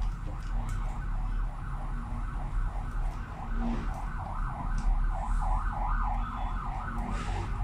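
A siren-like tone warbling up and down about four times a second without a break, over a low hum, with a few faint clicks of parts being handled.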